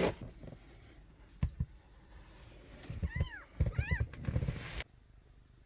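Kittens meowing: two short high, arching cries about three and four seconds in, amid rustling and a few knocks of handling. The sound cuts off abruptly a little before the end.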